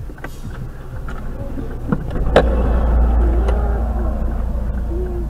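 Low rumble of vehicle noise heard from inside a stopped car, growing louder about two seconds in, with two sharp knocks around that point.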